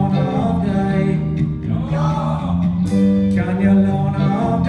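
Live rock band playing: electric guitar and bass guitar with a voice singing into the microphone.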